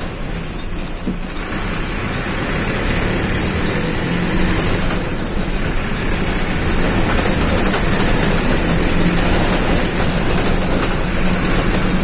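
City bus's diesel engine running as the bus is driven, heard from the driver's seat, with road and body noise. The sound grows a little louder over the first several seconds.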